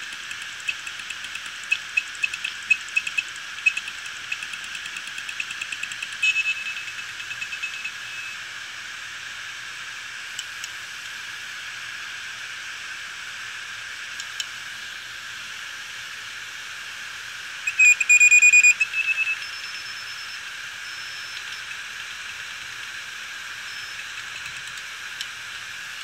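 Open Seagate Barracuda 7200.11 hard drive running with its cover off, a drive already dead from the SD15 firmware fault. Its spinning platter makes a steady whine, and the head actuator gives rapid ticking and chirping for the first several seconds, then a held tone. About two-thirds of the way through comes a short, loud high-pitched buzzing burst, followed by a few faint high beeps.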